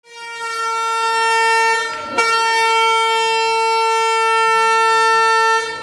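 A horn sounding one steady note in two long blasts: the first about two seconds, then a brief gap, then a second blast of about three and a half seconds.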